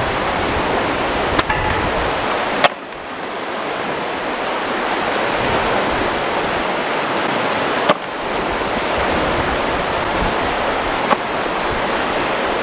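Fast-flowing river water rushing steadily, with four sharp clicks scattered through it.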